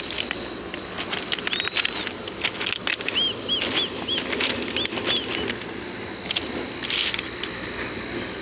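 Outdoor rural ambience: a bird gives a run of short, high, arched chirps, about three a second, in the first half, over a steady low background rustle with scattered clicks.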